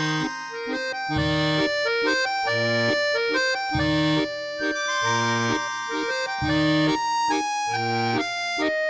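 Accordion music: a melody of held notes over a steady bass accompaniment, with low bass notes about every 1.3 seconds.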